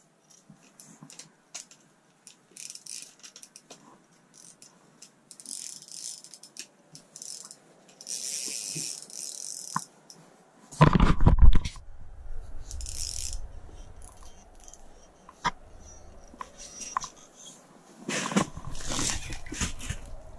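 Rustling and clicking of clothing and gear being handled, with short hissy rustles. About eleven seconds in there is a loud, sudden low thump, followed by low rumbling that returns near the end.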